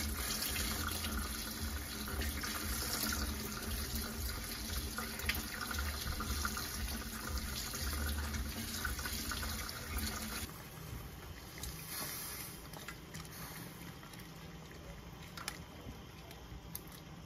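Kitchen faucet running into a stainless-steel colander as raw shrimp are rinsed by hand. About ten seconds in the water sound drops away, leaving a quieter background with a few small clicks.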